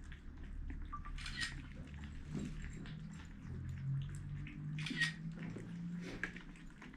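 Kittens eating, with small chewing and clicking noises. Two sharper, brief sounds come about a second and a half in and again about five seconds in.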